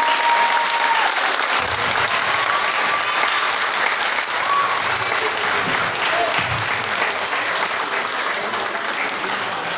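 Indoor audience applauding steadily, the clapping slowly dying down.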